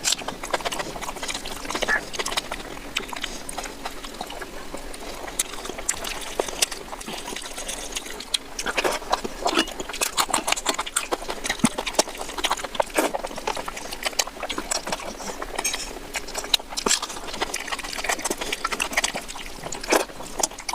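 Wet chewing and lip-smacking of a person eating oily mutton fat curry with rice: many irregular clicks and squelches close to the microphone.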